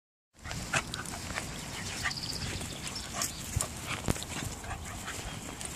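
Two cockapoos play-fighting, mouthing at each other: a run of short dog noises and scuffles.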